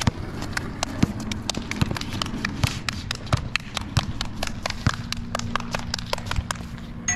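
A one-on-one basketball game in play: a basketball being dribbled and sneakers stepping on the court make a run of sharp, irregular taps and slaps, several a second.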